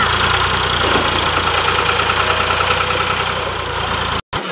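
Tractor diesel engine running steadily as it pulls a loaded trailer up a steep slope, its front wheels lifting under the load. The sound breaks off suddenly near the end.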